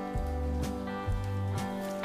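Background music: a country-style guitar tune over a steady, repeating bass line.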